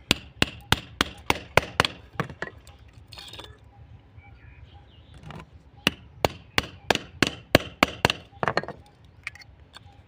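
A hammer tapping a small nail, used as a punch, to knock out the rivets that hold a stand fan motor's worn bush. The taps come in two quick runs of about three or four a second, the first at the start and the second about six seconds in.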